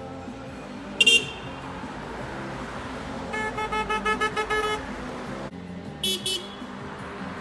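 A passing car's horn tooting rapidly, about eight short beeps in quick succession in answer to a request to honk, over the sound of traffic. A short, sharp, high-pitched sound comes about a second in, and another just after six seconds.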